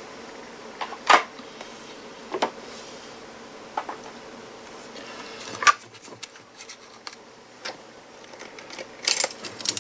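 Handling noises from taking apart a power tool battery pack: a few separate clicks and knocks as its cells and plastic parts are picked up and set down, with a quick run of small taps near the end.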